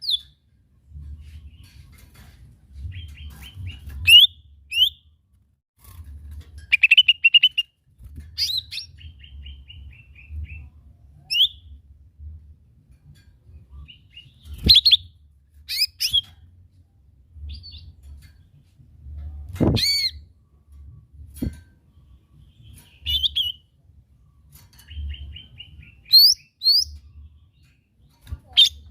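Cucak ijo mini (small leafbird) singing in separate phrases of sharp chirps, quick sweeping whistles and short rapid trills, with pauses between them and a faint low hum underneath.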